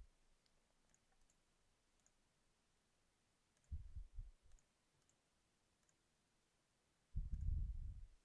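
Faint computer mouse clicks against near silence, with two short low rumbles, one about four seconds in and one near the end, the louder of the two.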